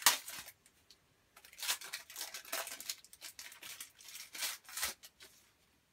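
Foil wrapper of a Match Attax trading card pack being torn open and crinkled, in several short bursts of rustling after a sharp snap at the start.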